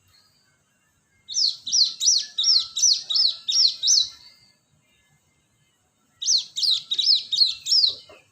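Cinereous tit (gelatik batu) singing: two phrases of quick, high, repeated sweeping notes, the first of about eight notes, then a pause of about two seconds, then a second of about six.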